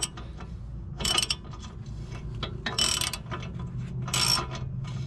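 Socket ratchet clicking in three short runs as it is swung back and forth, running down the nut on a new tie rod end's ball stud.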